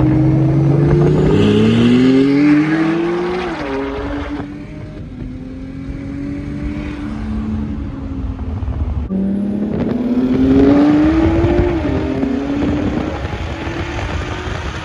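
Two cars accelerating hard in a roll race: engine notes climbing steeply and dropping back at upshifts, with the BMW's rear tires spinning on launch. The sound eases off in the middle, then a second hard climb comes after about nine and a half seconds.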